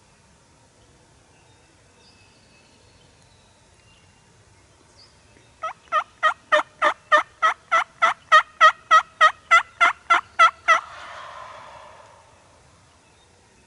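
A long series of about eighteen evenly spaced turkey yelps, about three and a half a second, loud and sharp. It is followed by a short rough, raspy trailing sound of about a second.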